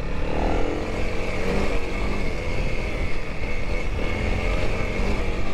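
Honda CRF300L's single-cylinder four-stroke engine running in second gear at a fairly steady pitch, wavering a little with the throttle, over a low rumble of wind on the microphone.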